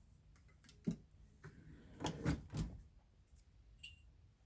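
Handling sounds of knives and small objects being moved and set down: a single soft knock about a second in, then a short cluster of knocks and rustles around two seconds in.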